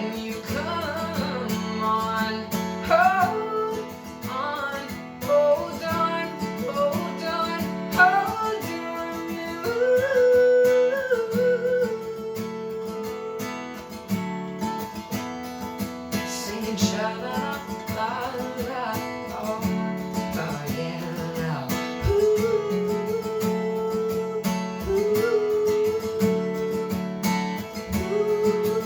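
Acoustic guitar strummed with a voice singing the melody wordlessly, in long held notes.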